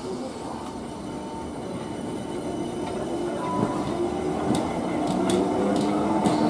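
South Western Railway Class 455-family electric multiple unit moving slowly through the platform and getting steadily louder. It gives a humming motor whine, and from about halfway through its wheels click sharply over rail joints.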